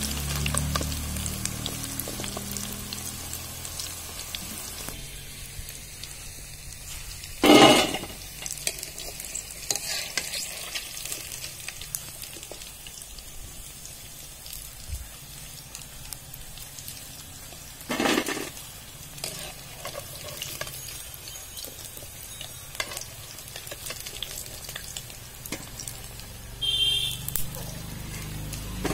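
Chicken pakoras deep-frying, with a steady sizzle of hot oil in a wide metal pan. Two brief louder clatters come about 7 and 18 seconds in as a slotted ladle works the pan, and a lighter clink comes near the end.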